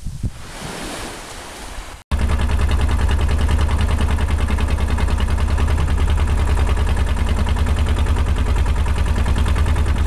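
Small waves washing at the shore for about two seconds, then, after an abrupt cut, a small wooden boat's inboard engine running loudly with a fast, steady low pulsing.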